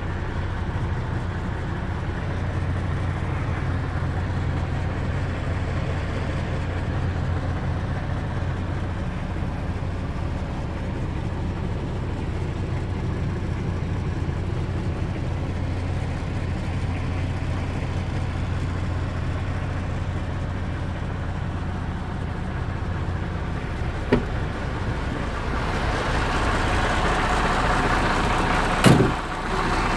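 MAN 26.440 truck's straight-six diesel idling steadily, heard from inside the cab. Near the end it grows louder and hissier as it is heard from outside, with a sharp click about three-quarters of the way through and a sharp knock shortly before the end.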